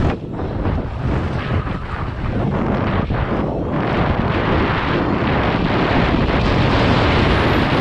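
Wind buffeting a helmet-mounted camera's microphone on a fast downhill mountain bike descent, over tyre noise on loose dirt and the bike's frequent knocks and rattles over bumps.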